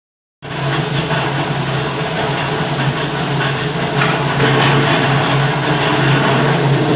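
A 200-ton mechanical power press running, its motor and belt-driven flywheel giving a steady, loud hum. A few faint knocks come about four seconds in.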